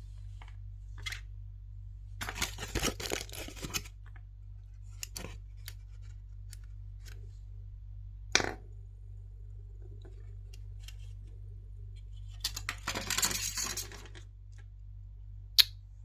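Close-up handling of a surprise egg's plastic toy and wrapping: two bursts of crinkling and clicking, a couple of seconds in and again about twelve seconds in, with a sharp single click near 8 s and another just before the end, over a steady low hum.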